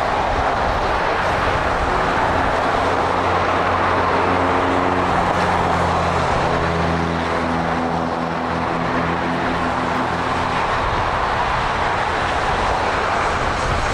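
Jet aircraft engines: a steady, loud roar, with a low droning hum that comes in a few seconds in and fades away near the end.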